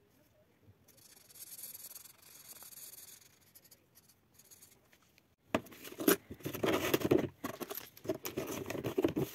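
Hands rubbing and rustling paper envelopes and banknotes, a dense run of scraping and crinkling that starts about halfway in after a faint hiss.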